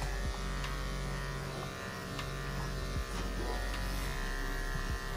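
Corded electric pet clippers running with a steady buzz while shaving a small dog's coat.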